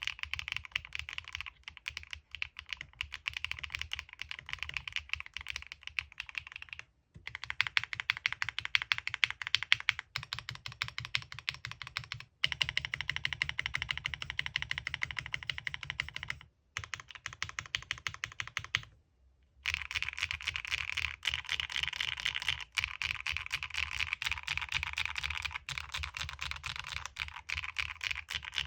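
Fast, continuous typing on a Qwertykeys QK75 mechanical keyboard: a dense stream of keystroke clacks, broken by a few brief pauses.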